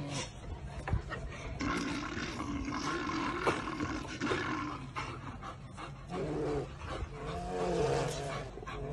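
Brown bear cub making drawn-out, rising-and-falling low calls, a few in a row, strongest near the end.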